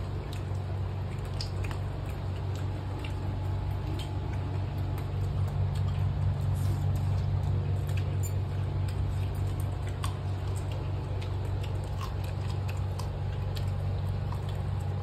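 People eating curry and rice by hand: soft chewing and scattered small clicks and rustles of fingers on leaf plates, over a steady low hum.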